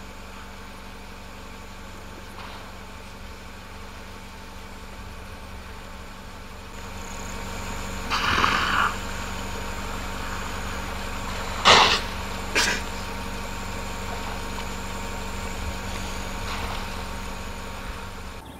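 Vehicle engine idling steadily, with three short, sharp bursts of noise over it around the middle, the second of which is the loudest.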